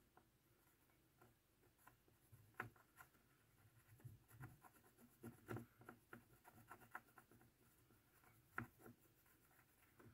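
Faint, irregular scratching and tapping of a graphite pencil tip being rubbed onto the frog of an OO gauge model railway point. The graphite is laid on to improve electrical contact over the point's dead section.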